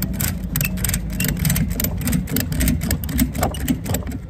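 Ratchet strap tensioner being cranked to tighten a load strap on a flatbed trailer, its ratchet clicking sharply several times a second, over the steady low hum of an engine running.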